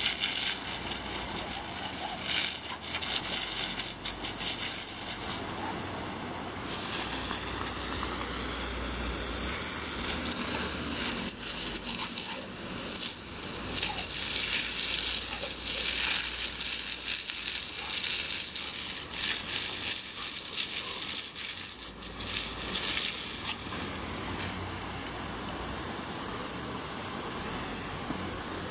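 Garden hose spray nozzle hissing steadily, its jet of water spattering on the grass and on a running dog.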